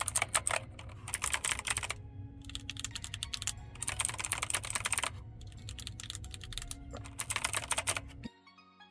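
Rapid key presses on an old Logitech Pro computer keyboard, clattering in several quick bursts of many clicks. The typing stops abruptly near the end and soft music comes in.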